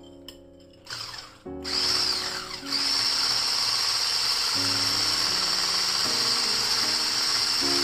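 Handheld electric whisk switching on about a second and a half in, then running with a steady high whine as it whips cream. Soft background music plays underneath.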